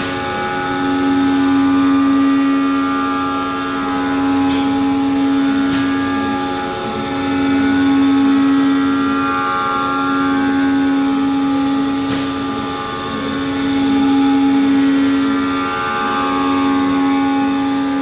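Rottler 5-axis CNC machining center porting a GM LS cathedral-port cylinder head: a steady, high machine hum with several higher steady tones. Higher tones swell and ease every few seconds as the cutter works through its tool path, with a few faint ticks.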